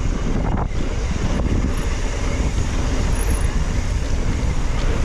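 Steady wind rumble buffeting the microphone on a fast mountain bike descent, mixed with the rolling rush of the bike's tyres on a dirt trail.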